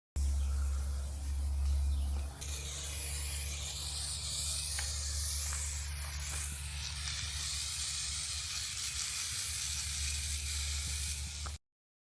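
White paint being sprayed onto metal van flares: a steady spraying hiss over a low hum, with a few faint clicks, that starts and cuts off abruptly.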